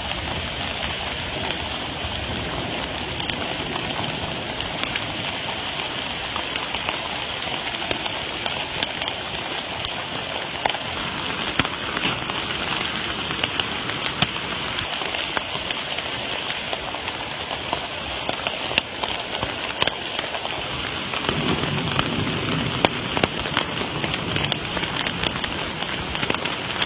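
Steady rain falling, with many sharp ticks of drops striking nearby surfaces.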